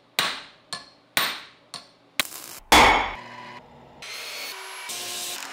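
A hand hammer strikes a steel anvil four times, about two blows a second, each ringing out. A heavier thud follows, the loudest sound, then an electric miter saw runs with a steady whir near the end.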